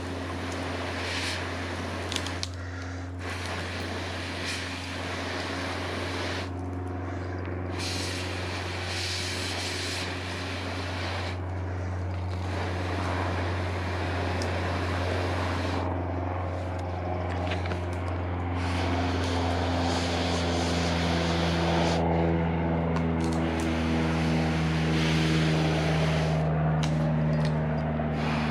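Steady low engine drone that grows gradually louder, its pitch lines strengthening in the second half.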